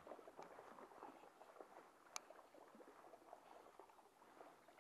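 Faint trickling and lapping of shallow river water, a steady patter of small ticks, with one sharp click a little over two seconds in.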